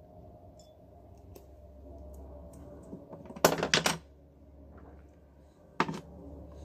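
Hand tools and cable being handled on a work surface: a quick run of four or five sharp clicks about three and a half seconds in, then a single sharp click near six seconds, with a few faint ticks before them.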